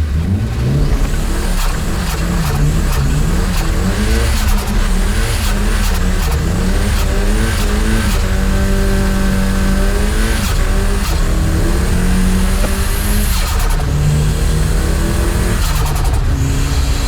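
Car engine revving hard, its pitch climbing and dropping again and again, held at steady high revs for a couple of seconds about halfway through.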